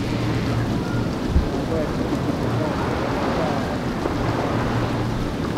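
Outdoor beach ambience: wind rumbling on the microphone over a steady wash of sea noise, with a brief low thump about a second and a half in.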